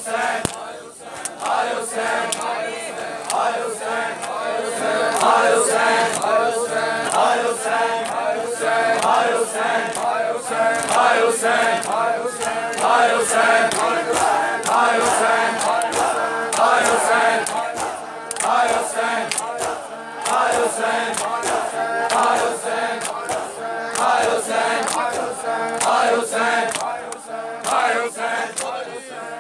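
A crowd of men chanting a Shia lament (noha) together, with the sharp slaps of hands beating on bare chests (matam) keeping time throughout.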